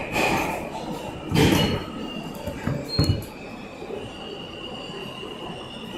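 New York City subway train running through a tunnel, with rattling and a few louder knocks in the first three seconds; about four seconds in, a steady high-pitched wheel squeal sets in and holds.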